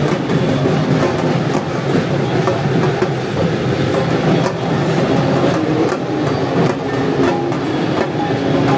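Loud, steady street din of a festival procession, with music mixed in that grows clearer near the end.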